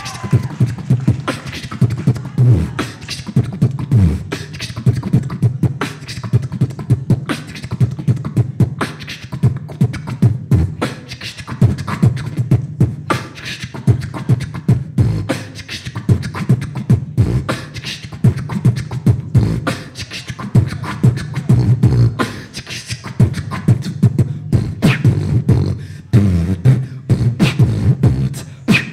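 Live beatboxing into a handheld stage microphone: fast, sharp vocal drum hits over a steady low bass line.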